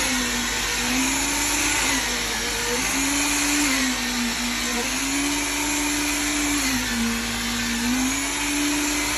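Machinery running during a concrete foundation pour: a steady motor whine that shifts up and down in pitch every second or two, over a constant hiss.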